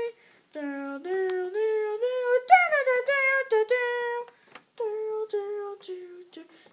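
A child humming a wordless tune in held, sliding notes, with a few short breaks.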